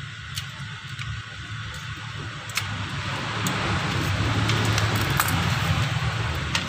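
Scattered light clicks and rattles of pliers and hands working on a removed cable-type car power window regulator, its metal rail and plastic cable carrier, over a steady low hum and a broad hiss that grows louder from about halfway.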